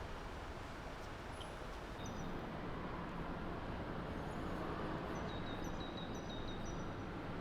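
Steady city street noise with the hum of traffic, and from about two seconds in a run of short, high chirps from small birds.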